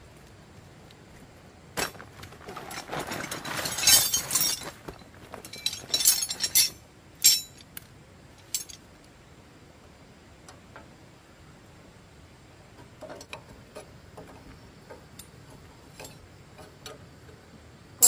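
Hard objects clinking and rattling together for about five seconds, densest around the middle, followed by two single sharp clinks and then a few faint ticks.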